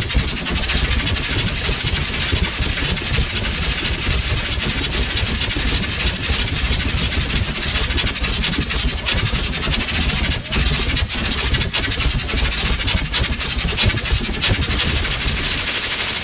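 Propane poofer flame effects firing sustained jets of flame: a loud, steady rush of burning gas, with a hiss on top and a low rumble underneath.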